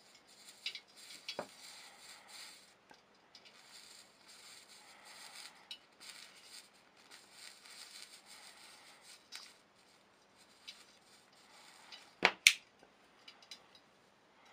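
Faint crackling and hiss as a high-power blue diode laser beam burns lettering into a painted metal sheet, with scattered small ticks. Two sharp clicks come close together about twelve seconds in, around when the beam goes off.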